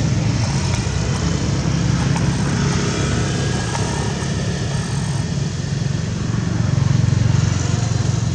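Steady low rumble with a continuous hiss, unchanging throughout.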